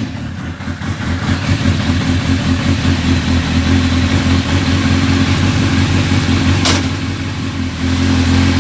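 Honda CBR1000RR Fireblade's 998 cc inline-four engine idling steadily, just after being started. A single sharp click comes about two-thirds of the way through.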